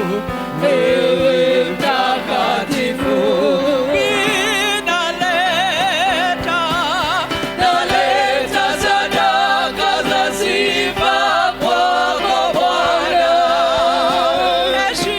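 Gospel worship singing: several voices with strong vibrato over a held instrumental backing.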